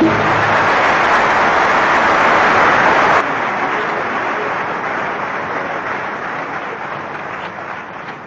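Large concert-hall audience applauding. Loudest for about the first three seconds, then dropping suddenly and dying away gradually.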